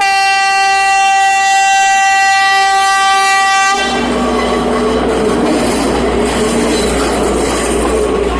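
Diesel train horn sounding one long steady blast of nearly four seconds, then the rumble and clatter of the train running on the rails.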